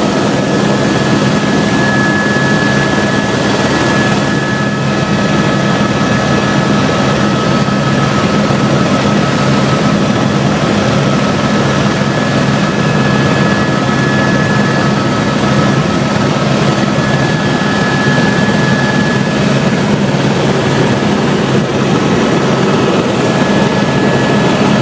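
Helicopter in flight: a loud, steady noise with a constant hum, unchanging throughout.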